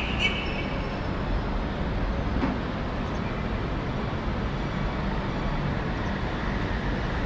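Steady wash of distant city street traffic, a dense rumble without pauses. A brief high tone sounds right at the start.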